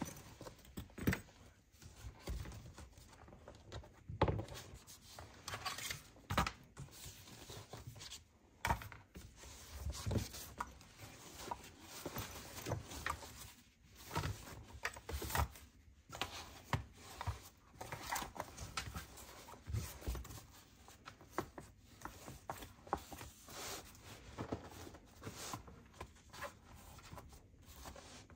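Hands handling and unpacking packaging and accessories: rustling and rubbing with irregular light taps, clicks and knocks.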